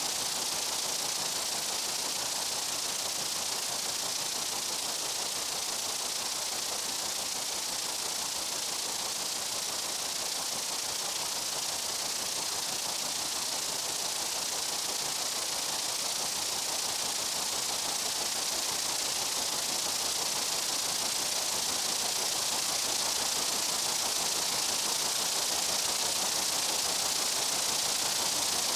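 A dense, steady hiss of insects in a summer meadow, even and unbroken, with no single buzz or call standing out.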